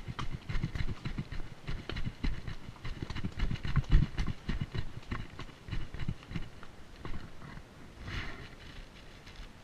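A palomino colt's hooves clopping on bare rock at a walk, in irregular, uneven steps as it climbs a rocky trail. The steps grow fainter and sparser after about seven seconds.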